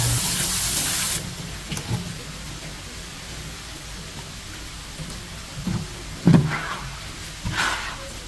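Water spraying from a tap during fish cleaning, shut off suddenly about a second in. Then a few scattered knocks and brief swishes follow, the loudest a thump about six seconds in.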